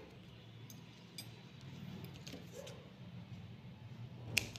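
Metal knitting needles clicking faintly now and then during hand-knitting in wool, with one sharper click near the end, over a low steady hum.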